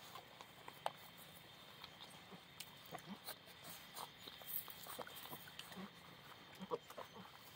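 Central Asian shepherd puppies nursing from their mother: faint, scattered suckling smacks with small grunts and squeaks.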